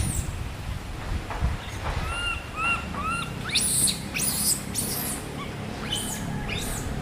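Monkey squeaking and squealing: three short arched squeaks about two seconds in, then sharp, very high falling squeals.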